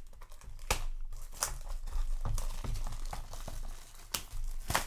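Packaging of a trading-card display box crinkling and rustling as the box is opened and handled, with several sharp crackles.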